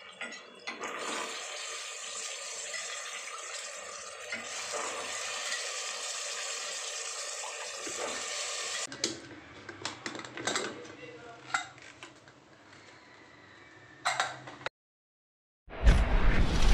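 Chopped onion, tomato and coriander sizzling in hot oil in an aluminium pressure cooker, a steady frying hiss. About nine seconds in, the hiss dies down as soaked chickpeas are tipped in and stirred, with scattered scrapes and clinks against the pot. Near the end, after a moment of silence, loud intro music starts.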